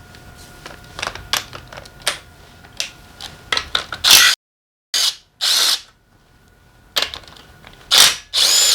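Metal clicks and clinks of hand tools and small engine parts being handled during motorcycle engine disassembly. These are followed by several short, loud, hissy scrapes.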